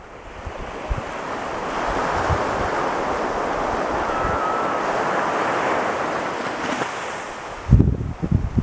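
Ocean surf: a wave breaks and its rushing wash swells up, holds for a few seconds, then fades away about seven seconds in. Wind buffets the microphone in low thumps near the end.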